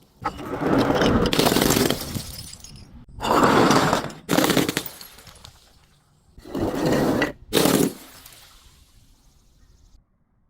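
Glass bottles breaking and crunching in five loud crashes, each trailing off, the first one long and drawn out.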